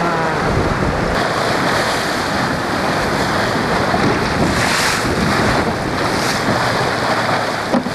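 Wind buffeting the microphone over the rush of water and spray along the hull of a sailing sportsboat planing through rough sea, with one louder surge about halfway through.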